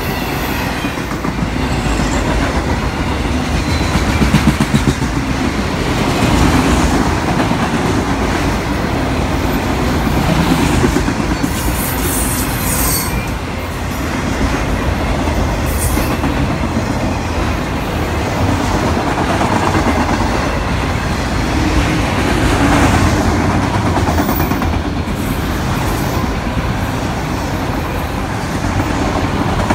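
Freight train of autorack cars rolling past close by: steady heavy rolling and rumbling of steel wheels on rail, with a few brief high squeals from the wheels partway through.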